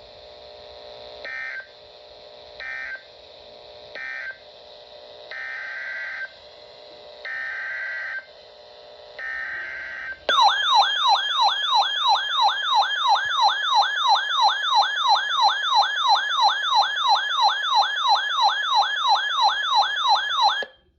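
Emergency Alert System tones: three short then three longer buzzy bursts of SAME digital data over a faint steady hum. These are the end-of-message code of one alert and the header of the next. About ten seconds in, a loud warbling alert tone sweeps up and down about three times a second for some ten seconds.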